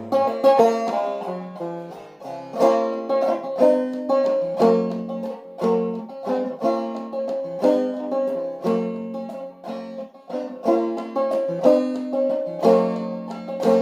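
Five-string banjo played clawhammer style in low cGCEG tuning, an instrumental break of the tune with no singing. Plucked notes run continuously, with strong accents about once a second.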